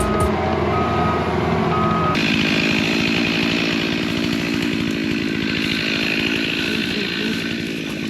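A vehicle reverses with its backup alarm beeping for about two seconds. A small two-stroke power tool engine then runs steadily at high speed.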